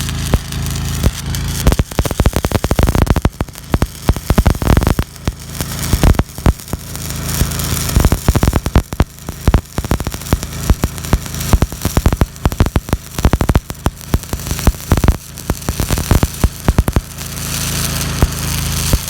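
Stick-welding arc crackling and popping irregularly as a bead is run on a fence top rail, starting about two seconds in and stopping shortly before the end. A steady engine hum, from an engine running, sits underneath throughout.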